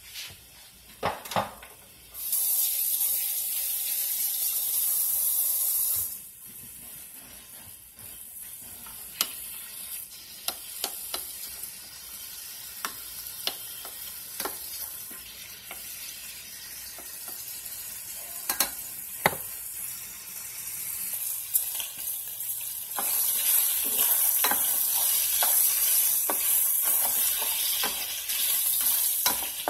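Sliced pork sizzling as it browns in coconut oil in a stainless steel sauté pan, stirred with a spoon that clicks and scrapes against the pan. The sizzle swells louder for a few seconds near the start and again near the end.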